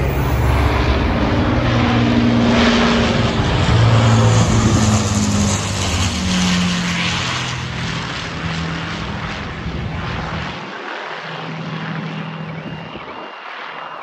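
Avro Lancaster bomber's four Rolls-Royce Merlin piston engines running as it flies low overhead, loudest about four seconds in, then fading as the aircraft moves away.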